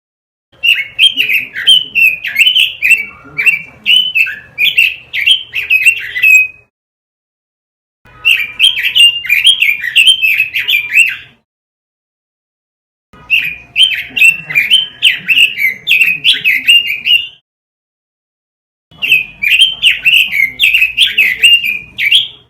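Pekin robin (red-billed leiothrix) singing in four rapid warbling phrases of about four to six seconds each, with silent gaps between them.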